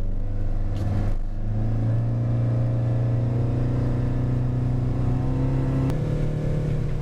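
Motorboat engine speeding up after running slowly: its note rises about a second in, then holds steady at cruising speed. It is heard from inside the small pilothouse cabin. Near the end there is a single click and a slight shift in the engine note.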